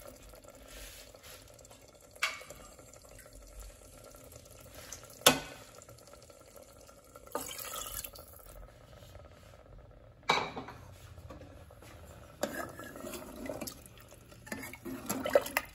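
A ladle stirring potato curry in an aluminium pressure cooker, with a few sharp clinks of metal on the pot. Water is poured in from a bowl partway through.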